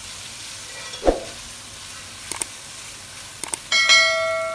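Sliced onions sizzling as they fry in oil in an aluminium pot, with a metal spoon stirring and knocking once against the pot about a second in. Near the end a click and a loud ringing bell chime sound from a subscribe-button animation.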